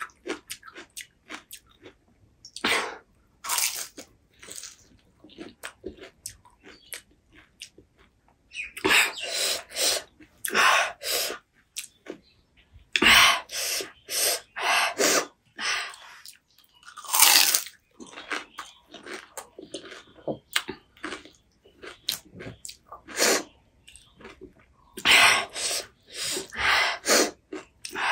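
Close-up chewing and crunching of pani puri, the crisp hollow shells cracking in the mouth, in irregular bursts with many small clicks between.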